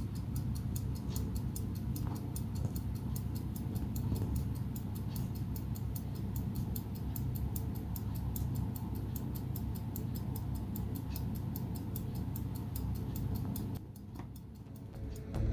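Mechanical pocket watch ticking rapidly and evenly, close up, over a low steady rumble; the ticking stops about fourteen seconds in.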